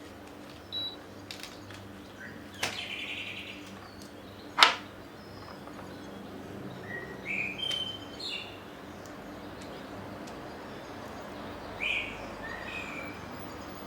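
Intermittent short bird chirps over a steady low background hum, with two sharp clicks, the louder one about four and a half seconds in.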